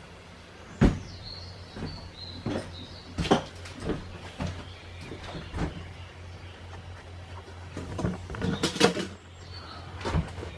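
Footsteps and knocks on the floor of an empty trolleybus as a man walks off down the aisle, with a sharp knock about a second in and a quick run of louder clatter near the end. A steady low hum runs underneath.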